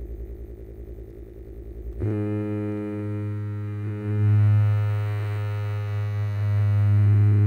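A low pulsing hum. About two seconds in, a sustained low droning tone with many overtones starts abruptly, swells louder a couple of seconds later and holds steady.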